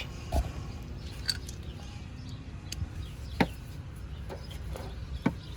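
A few faint, scattered clicks and taps of hand tools on the transaxle mount's bolts, the clearest about three and a half seconds in, over a low steady hum.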